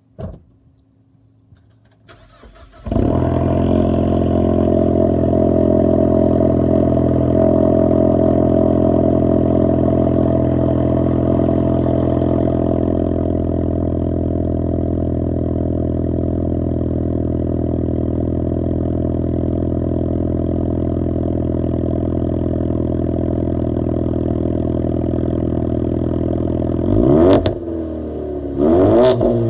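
2017 Ford Mustang EcoBoost's turbocharged 2.3-litre four-cylinder, straight-piped in place of its resonator and mufflers, cranking and catching on a cold start about three seconds in, then running at a steady cold idle. Near the end it is revved twice in short blips. A short knock sounds right at the start, before the cranking.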